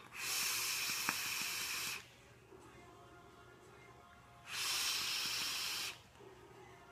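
A long drag on an e-cigarette mod, a steady rush of air drawn through the atomizer for about two seconds. After a pause comes a second rush of breath of about a second and a half as the vapor cloud is blown out.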